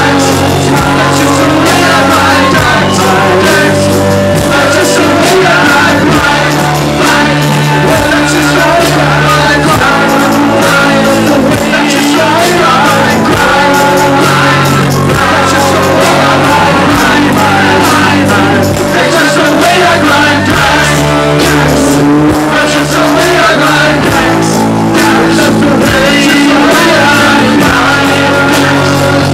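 Live rock band playing at full volume: electric guitar, bass and drums under sung lead vocals.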